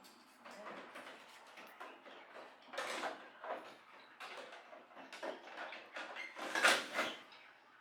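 Irregular scraping, clicking and rattling of parts and tools being handled, with louder scrapes about three seconds in and near the end.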